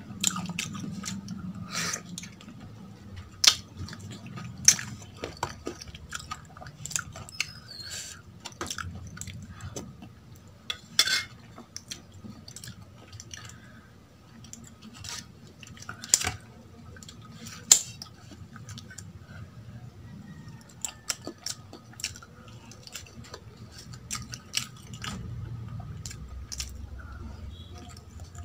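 Eating sounds of idli soaked in sambar: wet chewing and mouth smacks, mixed with light clinks of fingers and a spoon against a stainless steel bowl and plate. Many sharp clicks come at irregular intervals throughout.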